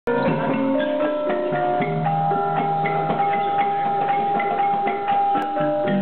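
Traditional Malaysian gong-chime ensemble playing a tune: kettle gongs struck in a quick run of ringing melody notes over lower, longer-held gong tones.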